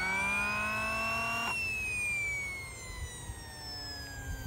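A model kerosene turbine in an RC helicopter, in its post-flight cool-down cycle. The starter motor spins the turbine up with a rising whine, then cuts out about one and a half seconds in. The turbine then coasts down, its whine falling slowly in pitch.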